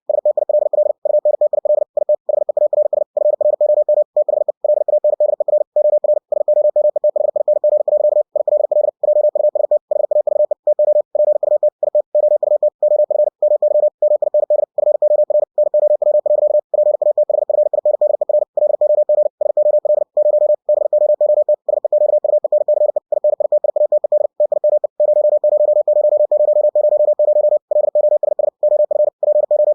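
Computer-generated Morse code (CW) tone of a single pitch, keyed at 60 words per minute: a rapid, almost unbroken stream of dits and dahs with short gaps between words.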